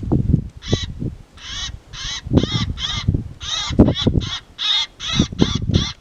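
Harsh crow-like caws repeated in quick succession, about two or three a second, with low irregular thumps underneath.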